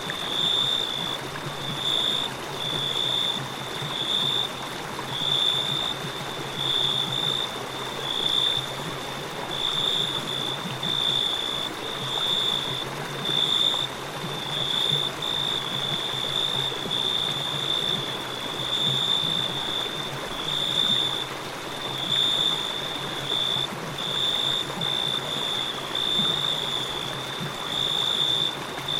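A river flowing steadily, with crickets chirping on one high note in a continuous, pulsing trill over it.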